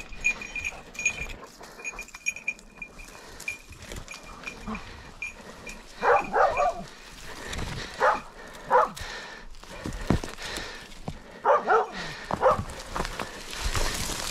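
A small bell jingling in the first few seconds, then a hunting dog barking six times in pairs. Dry brush crackles near the end.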